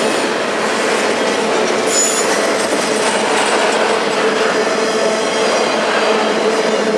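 Double-stack intermodal train's container well cars rolling past at speed close by, a steady noise of steel wheels on rail, with a brief high wheel squeal about two seconds in.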